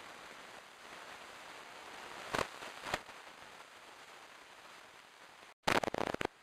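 Steady hiss broken by short, sharp crackles: two about two and a half seconds in, then a brief cut-out and a rapid cluster of louder crackles near the end.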